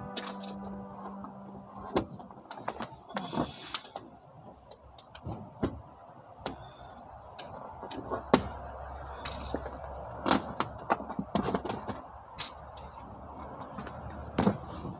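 Clear plastic sheeting crinkling and being handled, with irregular sharp clicks and taps as it is pressed and fitted over a car's floor.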